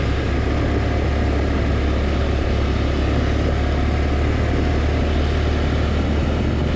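Small ATV engine running steadily, a constant low hum with an even noise over it and no change in revs.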